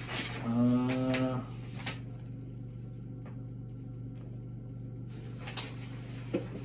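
A brief hummed voice sound, one flat held note, about half a second in. Then quiet room tone with a steady low electrical hum and a few faint clicks.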